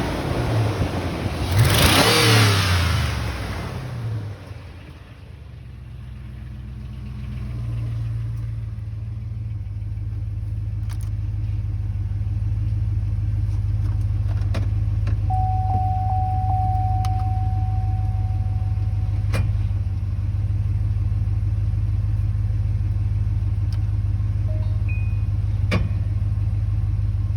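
Chevrolet Avalanche V8 running after a cold start: it revs briefly, the revs fall away over the first few seconds, and it settles into a steady idle. A steady tone sounds for about four seconds midway, along with a few faint clicks.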